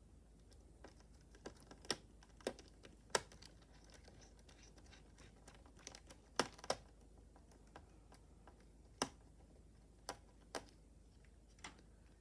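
Scattered light clicks and taps of small plastic and metal parts, from a screwdriver and screws being handled on an open laptop's screen assembly. About a dozen irregular clicks, a few of them sharper.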